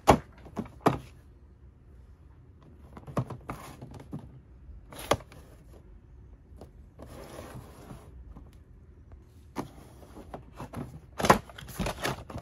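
Toy packaging being opened and handled by hand: scattered sharp taps and clicks of cardboard and plastic, with a brief rustle of packaging about halfway through.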